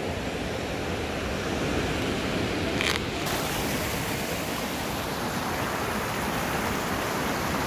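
Steady rush of a rocky stream cascading nearby, an even roar of water, with one short click about three seconds in.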